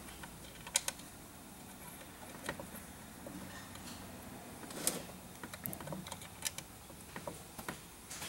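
Scattered small metal clicks and taps as the parts of a Mk4 VW Jetta short-throw shifter assembly are handled and fitted by hand, the loudest about five seconds in and a quick run of them soon after.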